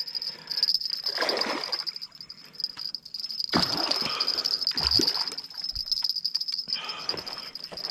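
A steady chorus of crickets, with several bursts of splashing from a large hooked Murray cod thrashing in the water at the bank's edge.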